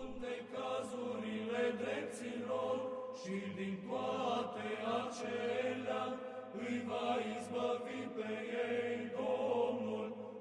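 Slow sung chant in long held notes that shift pitch about every second.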